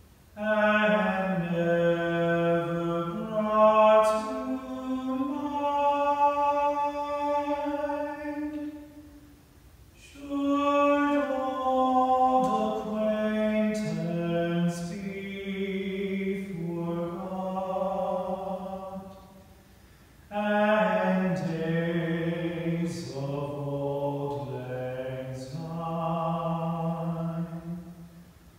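Men's a cappella ensemble singing a slow song in close harmony, in three long phrases of held notes with brief pauses for breath between them.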